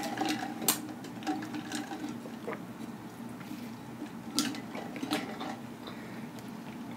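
Quiet mouth and handling sounds of a person eating and drinking: a few scattered soft clicks and smacks over a faint steady hum.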